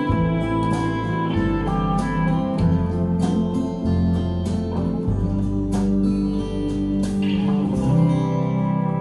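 Recorded guitar-led music with plucked strings and a changing bass line, played back through Monitor Audio Platinum PL300 II floor-standing loudspeakers and picked up in the room.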